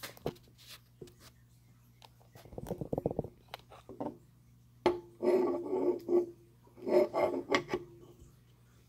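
Clicks, scrapes and metallic rattling as a Lansky knife-sharpening clamp is handled and fitted onto its metal pedestal stand, with a sharp click about five seconds in followed by two bursts of clatter.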